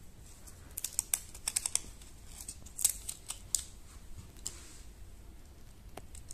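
Thin paper backing of a temporary tattoo handled and peeled close to the microphone: a quick run of crisp crinkles and clicks in the first half, then a few more scattered ones.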